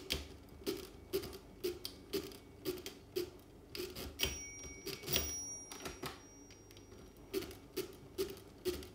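Facit NTK pinwheel calculator's hand crank being turned over and over while it works through a division, each turn a sharp mechanical clack, about two a second, with a short break in the turning around six seconds in. About four seconds in a bell rings briefly, the machine's signal that the dividend has been overdrawn.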